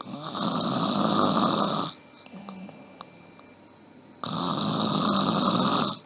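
A person snoring loudly: two long snores of about two seconds each, the second starting about four seconds in, with quieter breathing between them.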